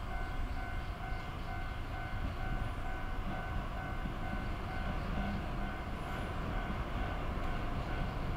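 Railway level-crossing warning bell ringing steadily, about two strikes a second, over a low steady rumble: the crossing is down because a train is approaching.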